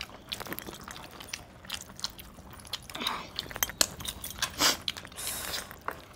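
Eating at the table: a large cooked chicken in gravy being torn apart by hand and chewed, heard as irregular small wet clicks and squelches with no steady sound.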